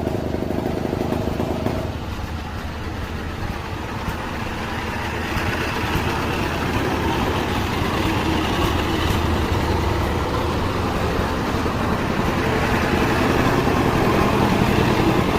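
Engine running continuously, steady at first and growing gradually louder toward the end.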